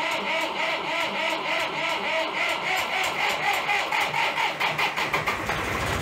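Case 485 tractor's diesel engine running with an even, rhythmic beat, on its first start after the cylinder head was pulled and refitted.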